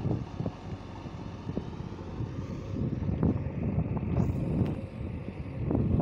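The four-cylinder diesel engine of a JCB 3DX backhoe loader working at a distance, heard through a gusty rumble of wind on the microphone that swells and fades.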